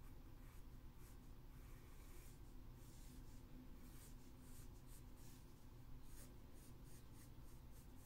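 Graphite pencil scratching faintly across paper in a run of short sketching strokes.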